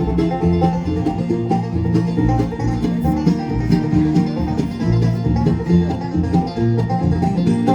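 Live bluegrass band playing an instrumental intro: banjo rolls and guitar over a bouncing low bass line, at a steady beat.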